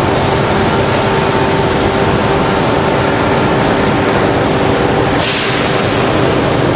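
Loud, steady industrial noise from a magnesium wire treatment station working on molten iron, with a steady hum running through it. A sharper hiss sets in suddenly about five seconds in and carries on.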